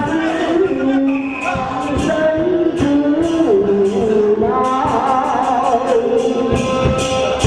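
Taoist ritual music: a voice sings a slow, chant-like melody in held notes over percussion strikes, which come more often in the second half.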